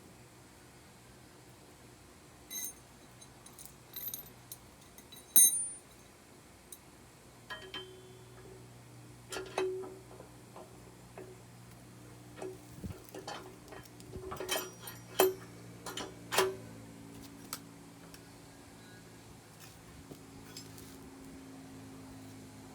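Metal tools and bike parts clinking and tapping, a dozen or so scattered knocks, some with a brief metallic ring, the loudest about five seconds in and around fifteen to sixteen seconds in.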